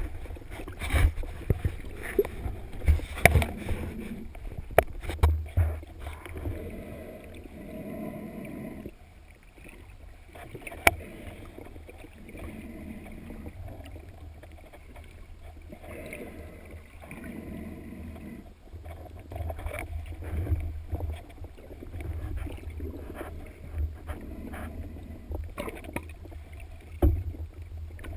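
Underwater sound picked up by a diver's camera: a muffled low rumble of moving water, swelling and fading every few seconds, with many scattered clicks and knocks.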